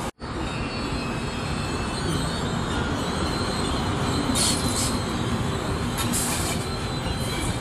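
FS E.444 electric locomotive rolling past on the station track: a steady rumble of wheels on rail, with two brief high-pitched bursts, about four and six seconds in.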